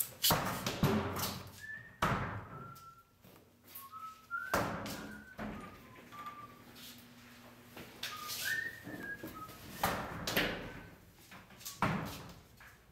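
Metal toilet stall doors banged open one after another, about five sharp echoing bangs in a tiled restroom, with short high whistle-like notes in between.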